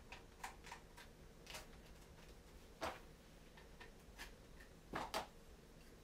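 Faint clicks and knocks of small parts being pushed and snapped together on an Arkon tablet mount by hand, irregular, with a louder click about three seconds in and a close pair of louder clicks near the end.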